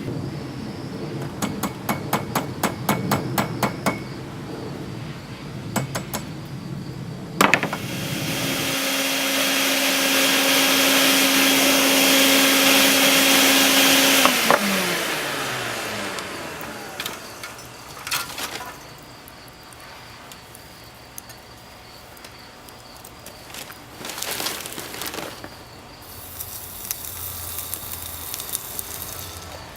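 Metalworking shop sounds: a run of quick light metallic clicks, a sharp knock, then a power grinder running for several seconds with a steady hum and a hiss of metal being ground, its pitch falling as it spins down after being switched off.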